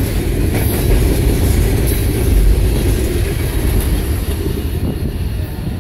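Freight train refrigerated boxcars rolling past close by: a loud, steady rumble of steel wheels on the rails, easing slightly near the end.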